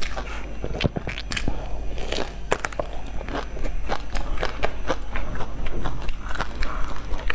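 Close-miked eating sounds: biting and chewing a soft bun with a fluffy shredded floss-and-seaweed coating, heard as many small irregular crackles and clicks. Near the end the coating rustles as the bun is pulled apart by hand.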